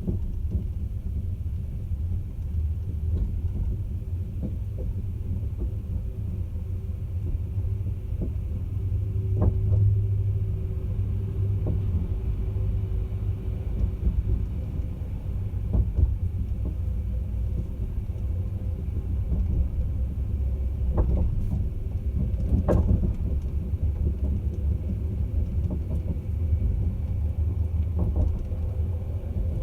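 Caledonian Sleeper train running: a steady low rumble with an occasional sharp knock or clunk.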